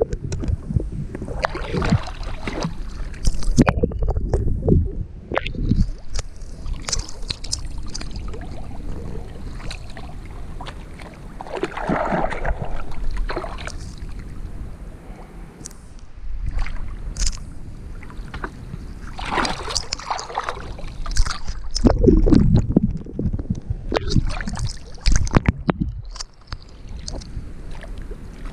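Canal water splashing and sloshing right at a waterline microphone in irregular bursts as a swimmer moves through it.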